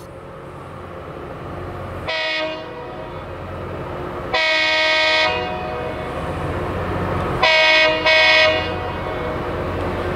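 Horn of the Loram rail grinder sounding four blasts as it approaches: a short one about two seconds in, a longer one a couple of seconds later, then two short ones close together near the end. Under the horn, the rumble of the oncoming train grows steadily louder.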